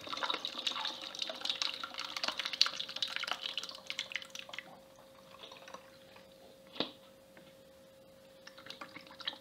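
Sato (fermented glutinous rice wine) pouring from a tilted plastic tub into a funnel: a splashing trickle for about four seconds, then thinning to scattered drips. A single knock comes near seven seconds in.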